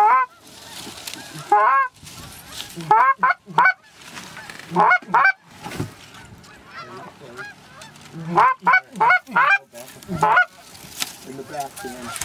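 Canada geese honking and clucking, in quick runs of several short calls, each run a second or more apart.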